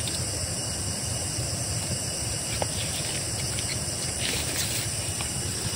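Night chorus of crickets and other insects, a steady high-pitched trilling, over a steady low rushing noise.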